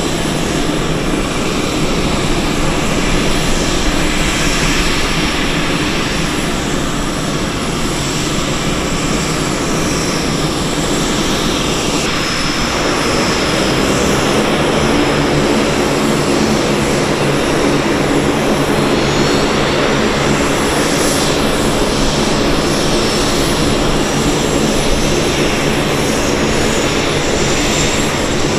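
Lockheed C-130J-30 Super Hercules on the ramp with its Rolls-Royce AE 2100 turboprops running. From about halfway through, a high whine slowly rises in pitch as an engine spools up during start and its six-bladed propeller begins to turn.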